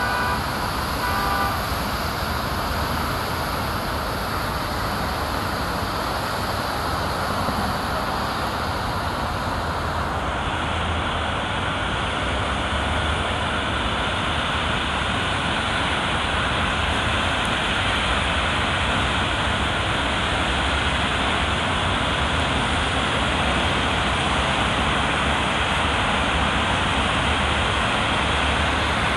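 Heavy rain with road traffic swishing through water on a wet avenue, a steady hiss. A siren's steady tones stop within the first two seconds, and the highest part of the hiss drops away abruptly about ten seconds in.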